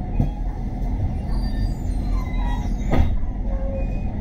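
Inside a moving city bus: a steady low road and drivetrain rumble, with faint squeaks and two knocks from the bus body, the louder one near the end.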